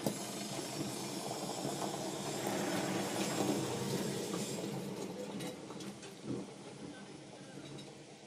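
Steady machinery running in the background, with a few light metallic clicks from rocker-arm and tappet parts being handled on an open diesel cylinder head. The running noise fades somewhat toward the end.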